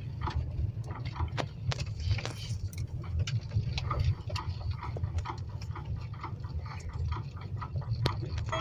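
Low steady rumble of a vehicle driving, with many irregular light clicks and ticks over it.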